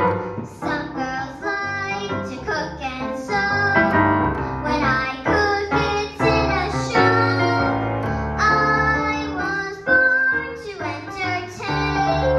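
Young girl singing a musical-theatre song solo into a microphone, accompanied on piano.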